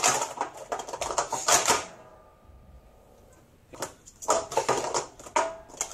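Plastic sport-stacking cups being stacked and unstacked at speed on a mat: a fast clatter of cups clicking and slapping together. It stops for about two seconds near the middle, then starts again.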